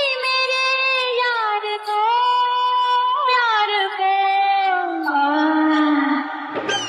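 A high female voice singing alone, without drums or bass, holding long notes that slide up and down and sink lower towards the end.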